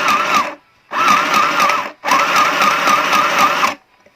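Mini portable electric sewing machine running on its low-speed setting, in three short bursts of stitching with brief pauses between them. A whine wavers up and down in pitch a few times a second over the machine's clatter.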